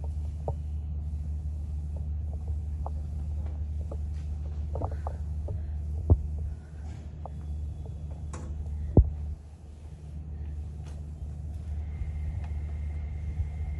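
A steady low hum runs throughout, broken by scattered faint clicks and two sharp knocks about six and nine seconds in. A faint high steady tone comes in near the end.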